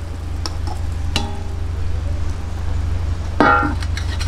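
Metal utensils clinking and scraping against a cooking pan as cooked chicken pieces are lifted out. A louder clank comes about three and a half seconds in, over a steady low hum.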